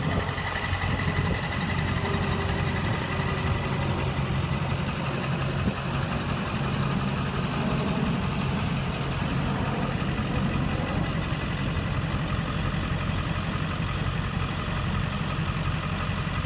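Ford 7.3 Powerstroke V8 turbo diesel idling steadily.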